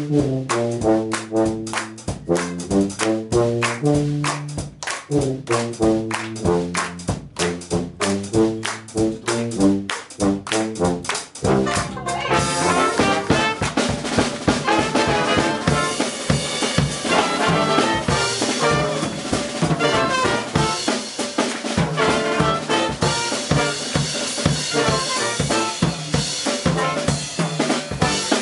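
Dixieland jazz band playing live: a low brass horn plays a solo over steady drums, and about twelve seconds in trumpet, clarinet and saxophone come in together for a full ensemble chorus.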